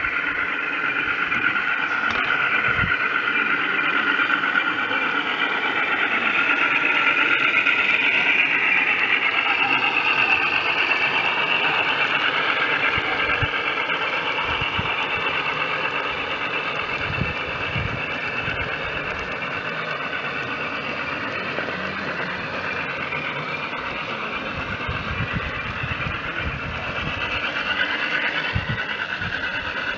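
G scale model diesel locomotives hauling a train of hopper cars along garden track: a steady mechanical running sound that swells, then eases off after about a third of the way through.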